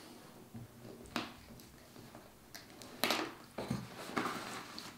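A cardboard box being handled and shifted on a wooden tabletop: a few short scrapes and knocks, the loudest cluster about three seconds in.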